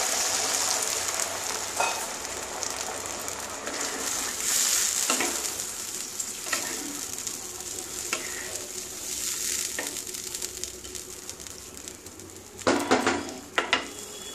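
Water sizzling and hissing in the hot ghee and oil of a pan of fried rice, the sizzle slowly dying down as the water settles. A few sharp knocks of a utensil against the pan come near the end.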